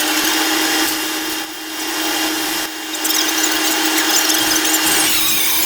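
Stick-welding arc crackling and sizzling steadily over a welder's steady hum, briefly weakening about one and a half and three seconds in.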